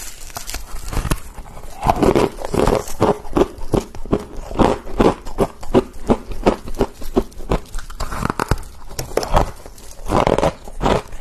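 Freezer frost crunching in quick repeated strokes, a few a second, with denser flurries now and then.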